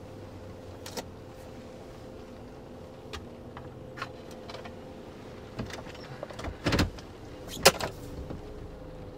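Plunger-shaped trophy being handled and set down on a car dashboard: a few light clicks, then two knocks about a second apart near the end, over a steady low hum in the car.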